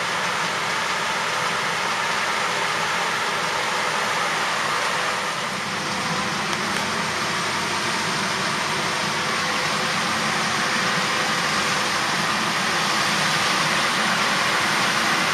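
Claas Lexion 750 combine harvester running steadily, its Caterpillar C13 inline-six engine and machinery making an even, unbroken mechanical noise.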